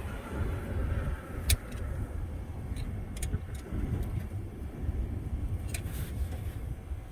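A low, unpitched rumble with three or four sharp clicks, as of hand tools and metal parts knocking while a mechanical fuel pump is fitted to a truck engine.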